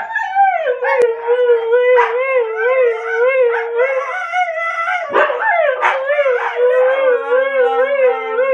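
Siberian huskies howling in long, wavering, sing-song calls, a dog's excited 'talking'. A second, lower-pitched howl joins in near the end, so two dogs howl together.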